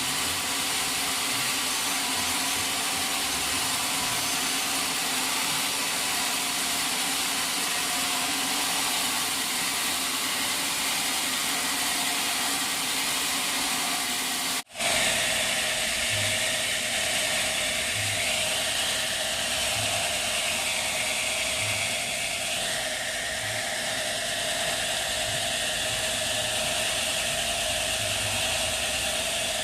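Sawmill machinery running with a steady mechanical noise. It drops out for an instant about halfway through, then carries on.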